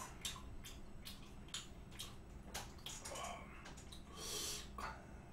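Faint eating sounds of raw beef being picked up, dipped in sauce and chewed, with many small clicks of chopsticks against bowls and plates. A short breathy hiss comes a little past four seconds in.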